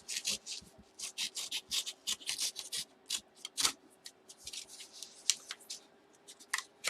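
Paper envelope being handled and opened by hand: quick, irregular rustling and crinkling of paper.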